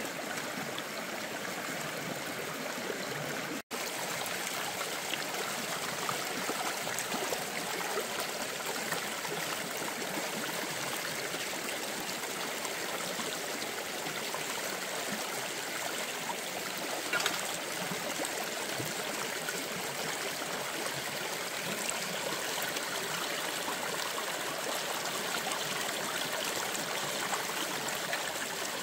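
Shallow stream running over rocks: a steady rush of water. It cuts out for an instant about four seconds in, and a single short knock comes a little past halfway.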